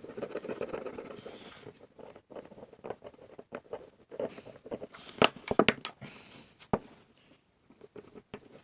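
Rapid scratching or scrubbing strokes on a small part, then a scattering of sharp clicks and light taps as small metal camera parts are handled on a bench.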